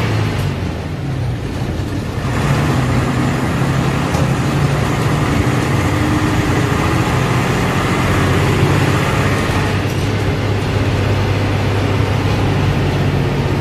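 An old bus's diesel engine running under way, heard from inside the driver's cab, with road noise. It eases off briefly just after the start, then pulls steadily again from about two seconds in.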